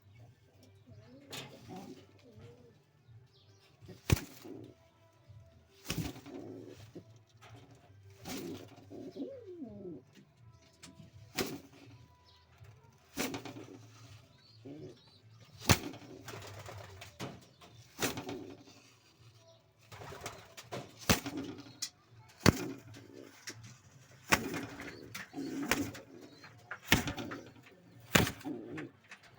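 Pouter pigeons cooing over and over in low, wavering calls, with sharp taps every couple of seconds.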